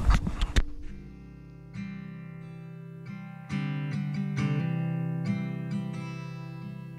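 Background music: a strummed acoustic guitar intro, chords struck every second or so. It follows a brief rush of noise that cuts off about half a second in.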